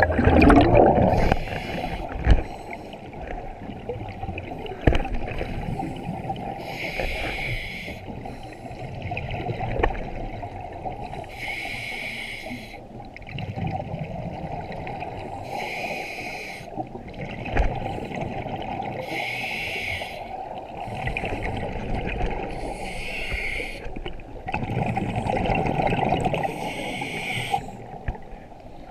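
Scuba breathing heard underwater: a regulator hiss about every four seconds over steady bubbling and water noise, with a few sharp knocks.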